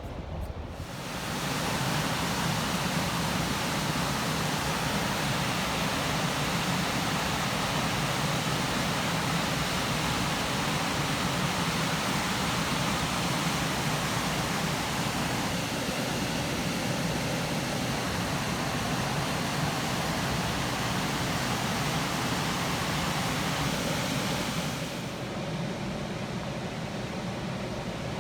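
Steady rush of water pouring from the dam, a full even hiss with a low rumble underneath. It swells up about a second in and falls off a little, losing its brightest part, near the end.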